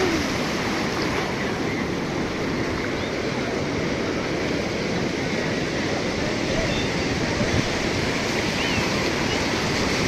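Sea surf breaking and washing over the shallows in a steady, unbroken rush, with faint distant voices now and then.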